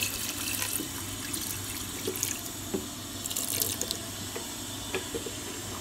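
Water poured into a metal pressure-cooker pot, splashing over mutton, onions and tomatoes. The splashing is heaviest at the start, with a second louder splash a little past three seconds in.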